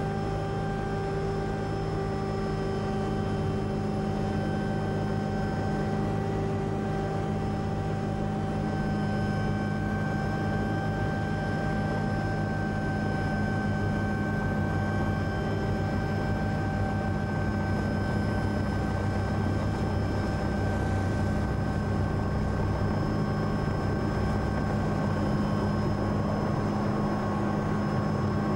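Helicopter running steadily, a constant engine and rotor drone with a fixed whine over a low rumble.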